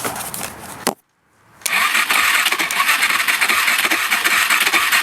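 Kawasaki KFX 400 ATV's single-cylinder engine being cranked by its electric starter without catching: a short burst that cuts off about a second in, then a steady crank of several seconds. The quad wants to start but won't, a failure the owner puts down to the starter and the carburettor.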